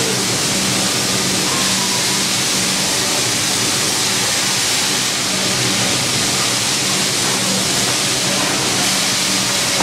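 Escaping steam hissing steadily and loudly alongside a slowly moving steam-hauled train, with a low steady hum underneath.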